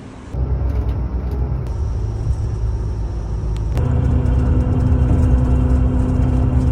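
A vehicle running with a loud low rumble that starts abruptly just after the start, and a steady hum that joins about four seconds in.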